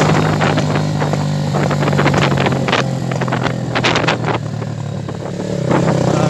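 Motorcycle engine running steadily under way, with many sharp crackles on the microphone over it; the engine grows louder again near the end.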